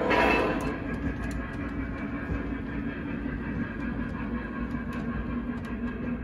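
Model freight train rolling over its track: a steady rumble and hum with scattered light clicks from the wheels. A brief louder sound comes right at the start.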